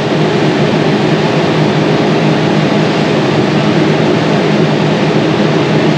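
Brazing torch flame hissing steadily as it heats a copper refrigerant line for brazing, over a steady low hum.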